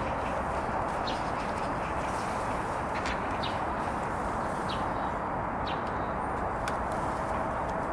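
Short bird chirps every second or so over a steady background noise.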